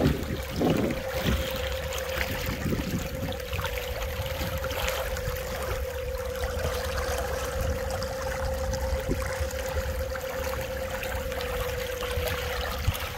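Wake water trickling and churning behind the stern of a solar electric yacht running on its electric drive, with no engine noise, and a steady hum underneath.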